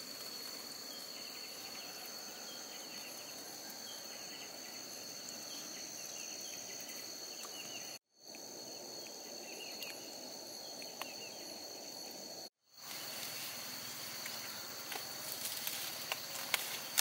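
Steady high-pitched chorus of insects, cut off briefly twice, with a few faint clicks near the end.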